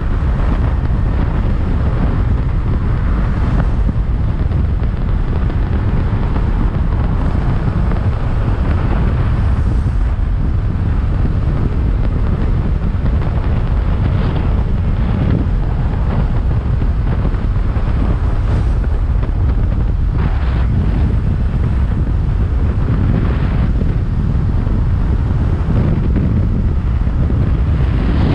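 Steady wind roar buffeting the microphone of a motorcycle ridden at speed, with a low rumble underneath.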